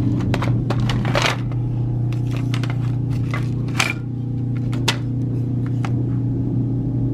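Wooden picture frames being shuffled against each other and against glassware in a wire shopping cart: a few knocks, clinks and scrapes, over a steady low hum.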